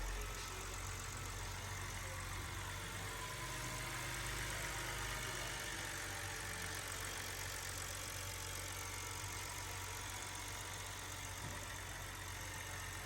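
BMW six-cylinder engine idling steadily, a low, even hum.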